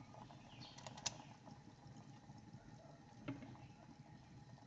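Pot of vegetable broth boiling, a faint bubbling hiss, with a sharp click about a second in and a softer one about three seconds in.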